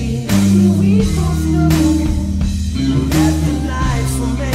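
Stratocaster-style electric guitar playing a slow, heavy rock riff over a backing track with drum kit and low sustained notes, between sung lines.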